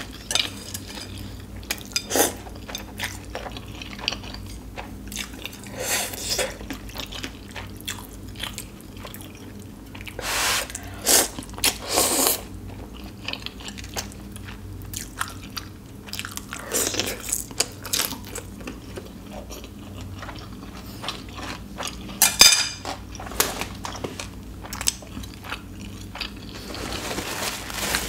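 Close-miked eating of spicy ramen noodles: wet chewing and lip smacks throughout, with three slurps of noodles in quick succession about ten seconds in and another loud slurp a little past twenty seconds.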